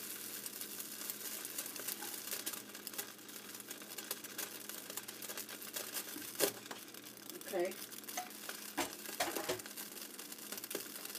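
Steady sizzling and crackling from a hot pot on the stove burner as handfuls of cooked, rinsed pasta are dropped in by hand, with a sharper click about six and a half seconds in.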